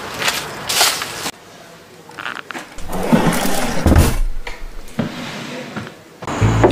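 A wooden bedside drawer being handled and pulled open, with scraping and knocks and a low thud about four seconds in. A brief noise comes about a second in.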